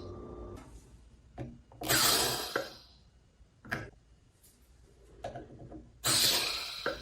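Vacuum food-storage container working: air hisses through its valve in two bursts of about a second each, with sharp plastic clicks between them.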